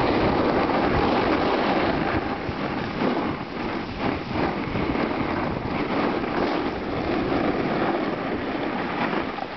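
Steady rushing and scraping of skis sliding over packed snow, mixed with wind buffeting the camera microphone of a moving skier.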